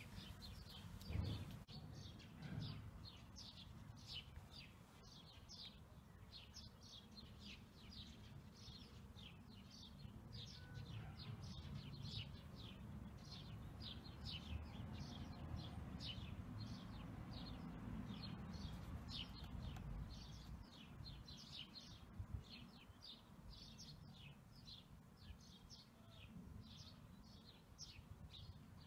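A small bird chirping over and over: quick, short, falling chirps at about two or three a second, faint over a low, steady outdoor rumble. A soft thump sounds about a second in.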